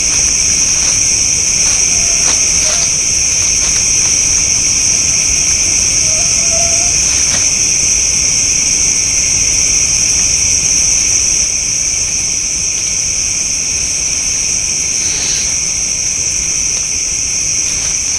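A steady, high-pitched chorus of night insects such as crickets, shrilling without a break, over a low background rumble.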